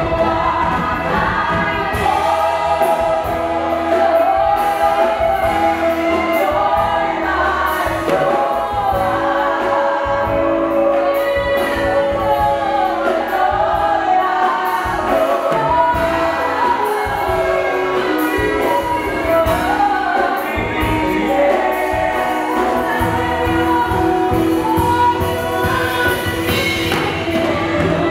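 Live gospel worship song: worship leaders and congregation singing together, backed by a live band with a steady beat.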